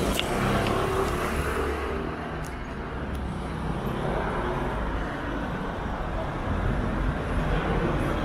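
City street traffic: cars and motor scooters passing through an intersection, a steady rumble of engines and tyres.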